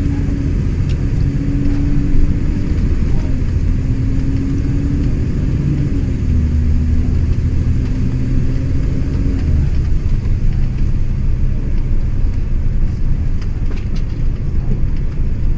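Bus engine and road rumble heard inside the moving bus, with the engine's note stepping up and down in pitch a few times and dropping away about ten seconds in, leaving the rumble.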